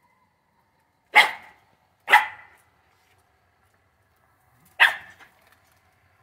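Scottish terrier barking three times: two sharp barks about a second apart, then a third a couple of seconds later.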